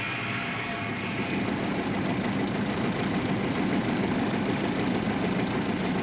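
Heavy engine of a crawler tractor running steadily with a low, even rumble, a little louder from about a second in.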